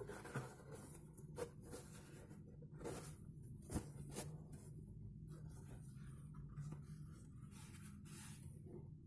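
Faint rustling and brushing of a fabric baseball cap as hands squeeze, bend and turn it, with a few soft clicks and taps. A low steady hum runs underneath.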